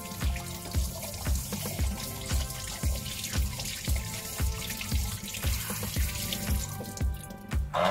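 Water running from a kitchen faucet's spray head over hands being washed at the sink, under background music with a steady beat of about two a second.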